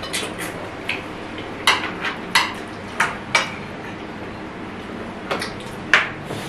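Forks, spoons and chopsticks clinking and scraping against plates and a baking tray as people eat: about a dozen irregular sharp clinks, the loudest one close to the end.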